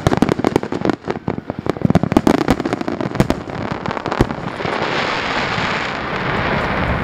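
Aerial fireworks shells bursting in a rapid barrage, many sharp bangs a second. About four seconds in, the bangs stop and give way to a steady crackling hiss as masses of glittering stars burn out.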